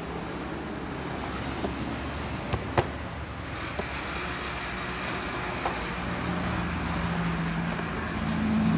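Sharp plastic clicks as a pry tool is worked around the edge of an Asus X200 laptop's plastic case, the loudest about three seconds in, over a steady background of traffic noise.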